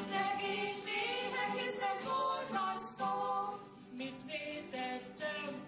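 Two voices singing a song together, with acoustic guitars played along.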